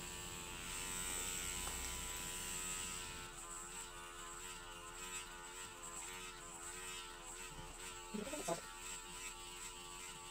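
Motorised microneedling pen running continuously, a steady electric motor hum with slightly wavering pitch as its needle cartridge is worked over the skin of the cheek.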